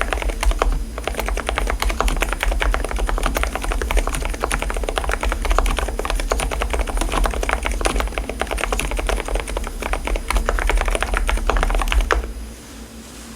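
Fast continuous typing on an Mstone mechanical keyboard fitted with silent switches, the dampened keystrokes giving soft, muted clacks. The typing stops about twelve seconds in.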